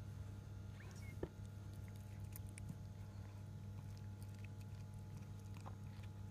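Mother cat licking and tending her newborn kitten: soft, faint wet clicks over a steady low hum, with a brief faint squeak about a second in.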